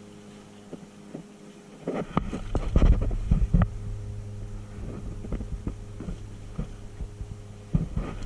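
Steady electrical hum, with irregular knocks and rustling handling noise starting about two seconds in, loudest around three seconds.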